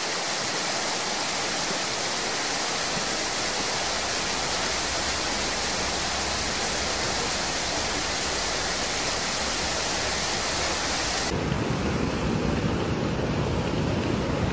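Muddy flash-flood water rushing down a street: a steady, even rush of water. About three seconds before the end it changes to a deeper, slightly louder rush.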